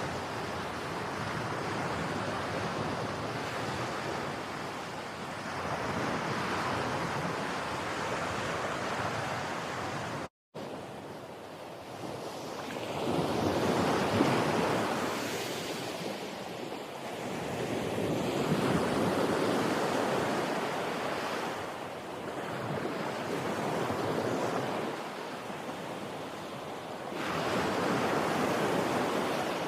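Ocean waves breaking on a beach, the surf swelling and falling back every few seconds. A brief cut to silence about ten seconds in.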